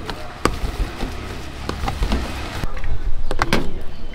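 Busy street noise with a steady low rumble and several sharp clicks and knocks, the loudest pair a little past three seconds in.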